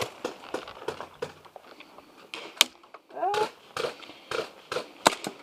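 Airsoft guns firing single shots: an irregular series of sharp snaps and cracks, two of them much louder than the rest, about two and a half and five seconds in.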